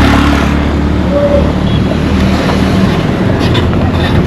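Motor vehicle engine running steadily at close range, a low hum over road noise.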